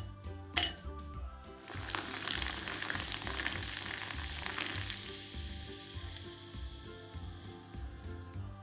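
An ice cube clinks into a glass about half a second in. Then a fizzy soft drink is poured over the ice, hissing and fizzing strongly for a few seconds, and the fizz slowly dies down as the foam settles.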